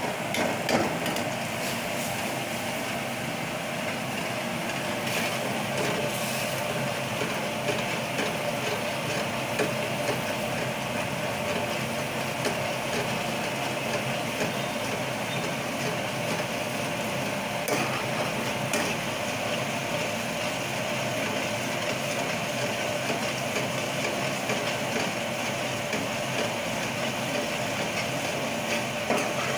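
Steady machine hum in a commercial kitchen, with a few sharp clinks now and then as a steel ladle stirs thick curry gravy in a pan.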